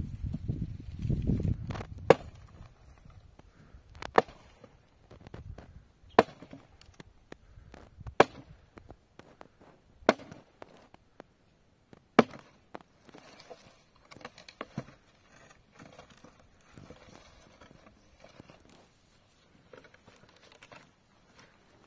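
A series of sharp blows, six of them about two seconds apart, followed by fainter knocks and clatter. A low rumble fades out over the first second and a half.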